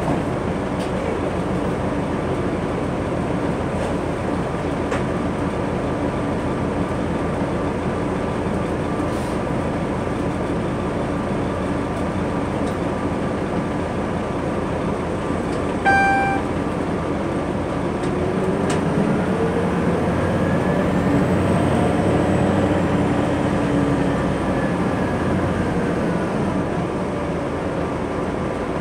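Inside a 2003 New Flyer D60LF articulated diesel bus under way: steady drone of its Detroit Diesel Series 50 engine and Allison transmission over road noise. A short electronic beep sounds a little past halfway. Then a whine climbs in pitch and the noise grows louder for several seconds as the bus picks up speed.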